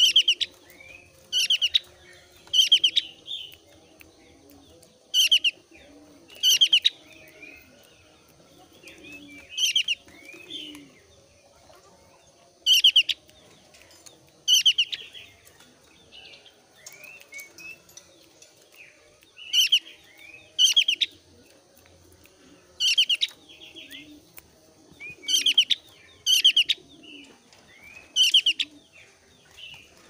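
Opior Jawa (Javan grey-throated white-eye), thin-browed type, in breeding condition, calling over and over in short, loud, rapid rattling bursts every one to three seconds, with softer chirps between them.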